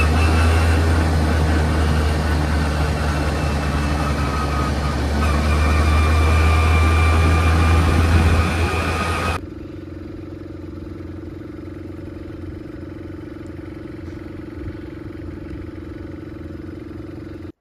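Quad bike engine running while riding, with heavy wind rumble on the phone's microphone and a faint steady whine. About nine seconds in it cuts abruptly to a quieter, steady engine hum.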